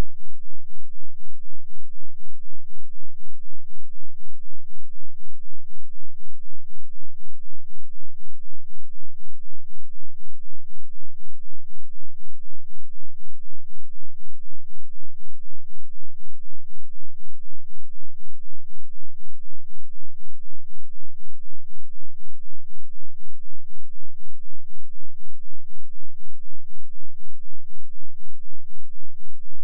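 2 Hz sine-wave subwoofer test tone: a loud, unchanging, very deep throb that pulses evenly and never varies.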